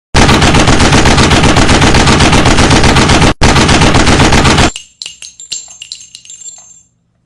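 Machine-gun fire sound effect: rapid automatic shots for about four and a half seconds, broken once by a brief gap, as if bullets are striking steel plate. The shots give way to scattered metallic clinks and thin ringing that fade out.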